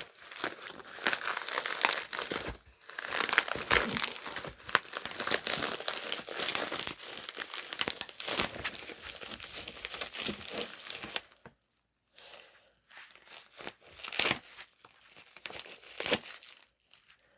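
Packaging being handled and crinkled while an album is unboxed, a dense, crackly rustling that keeps on with a couple of brief pauses.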